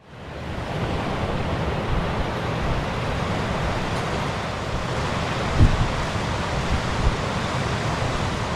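Steady rush of a waterfall's falling water, fading in over the first second, with wind buffeting the microphone.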